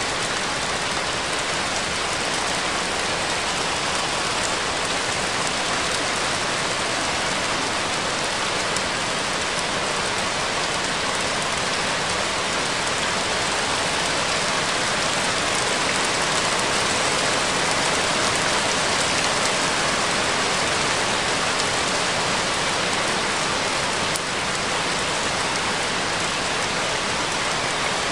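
Steady rain, an even, unbroken hiss of falling drops that holds the same level throughout.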